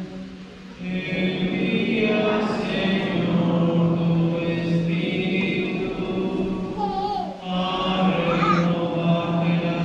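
Church choir singing, with a steady low held note sustained beneath the voices, as the sung psalm that follows the first reading at Mass.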